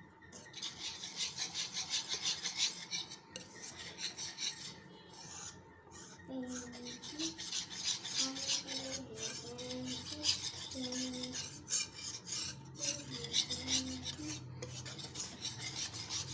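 Wire whisk scraping fast around a pan, beating gram flour, yogurt and water into a thick batter: quick rhythmic rasping strokes, pausing briefly a few times.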